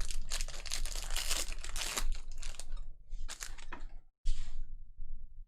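A trading-card pack wrapper crinkling and tearing as a pack is ripped open, with a dense crackle for about three seconds, then a few sharper rustles and clicks.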